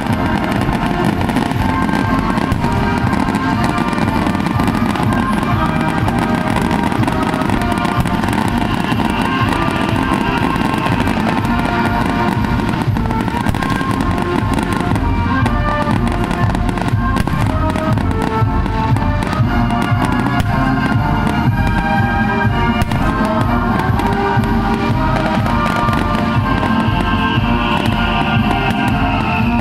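Daytime fireworks popping and crackling in rapid succession, over steady music that plays throughout.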